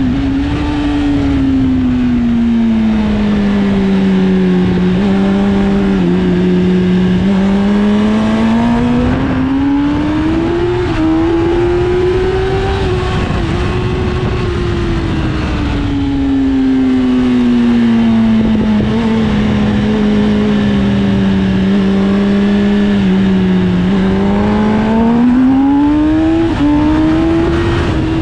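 Sport motorcycle engine running at speed, its pitch sinking slowly and then climbing again twice as the revs fall and rise, over a steady rush of wind.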